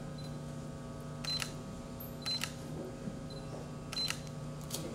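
A camera shutter clicking about four times, several of the clicks paired with a short high beep, over a steady low hum.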